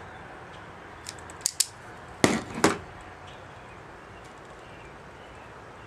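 Self-adjusting wire stripper clicking as it grips and strips the insulation off a wire: a few light clicks about a second in, then two sharper snaps close together a little past two seconds.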